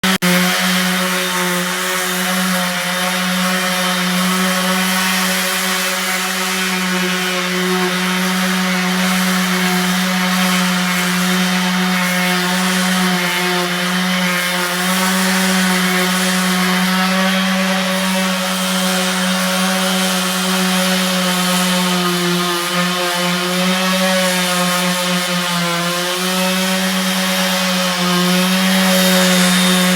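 Electric power sander running steadily, sanding down a wood-glue and sawdust filler, with a steady motor hum whose pitch wavers slightly at times.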